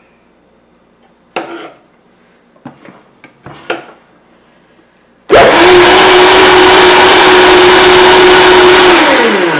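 A few light knocks and handling sounds, then a small electric motor starts suddenly about five seconds in and runs loud with a steady whirring hum. Its pitch drops near the end as it winds down.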